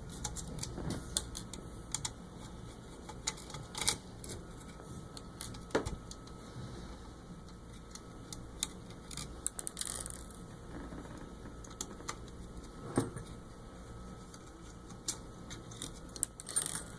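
Irregular small clicks and taps of a screwdriver taking out the four screws that hold a mass flowmeter's display circuit board, over a faint low hum.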